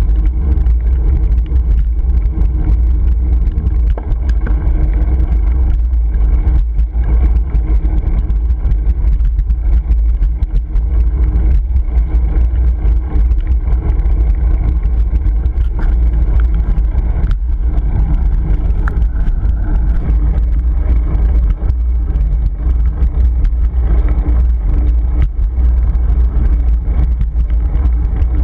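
Wind buffeting a GoPro Hero 3's microphone on a moving bicycle: a loud, steady, low rumble with road and tyre noise under it.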